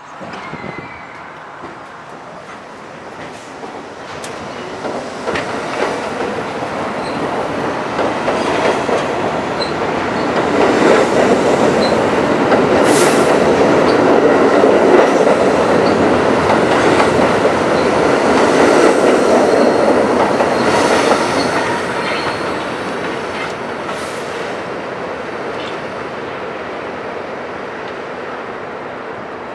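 An R32 New York City subway train pulling out of the station. The rumble and clatter of its wheels build over about ten seconds, stay loud, then fade slowly as the cars roll away, with a few sharp clicks along the way.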